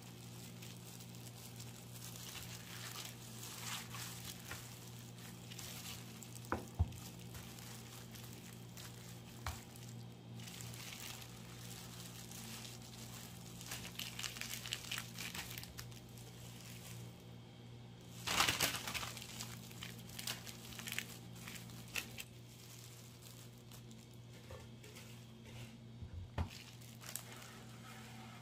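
Disposable plastic gloves crinkling and a paper liner rustling as hands crumble cooked chicken breast and spread it on a dehydrator tray, in irregular bursts with the loudest about two-thirds of the way in. A few light knocks and a steady low hum underneath.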